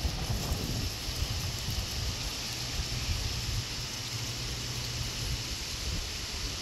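Thunderstorm wind and rain: a steady hiss with low, gusty rumbling from wind buffeting the microphone.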